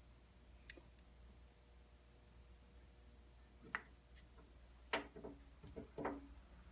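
Razor blade scraping old gasket material off a Jeep 4.0 thermostat housing: a few scattered sharp clicks, then two short scraping strokes near the end, faint.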